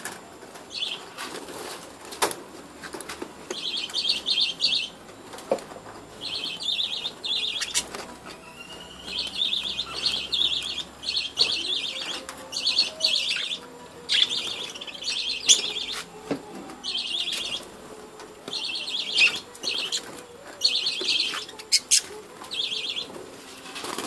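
A flock of budgerigars chattering in repeated short bursts of high chirps, with flapping wings and a few sharp clicks.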